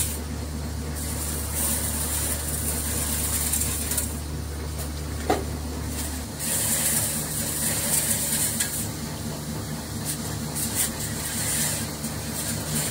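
Steady hum of factory machinery, its deepest tone dropping out about six seconds in, with hissing that comes and goes and one short sharp knock about five seconds in.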